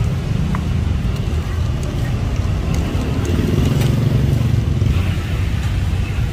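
Steady low rumble of street traffic, swelling a little around the middle, with a few light clicks of the metal cleaver and tongs on the griddle.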